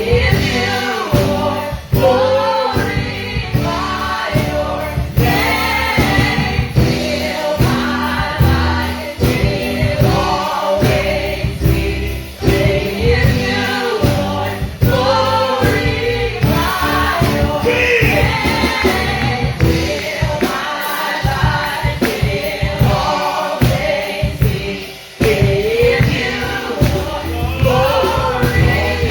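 Gospel choir and congregation singing a praise song with instrumental accompaniment.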